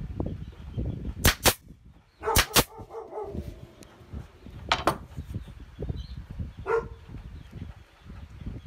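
Pneumatic nail gun firing into thin wooden strips in sharp, loud cracks, two quick pairs in the first three seconds and single cracks later. In between, wooden strips knock and slide on the workbench.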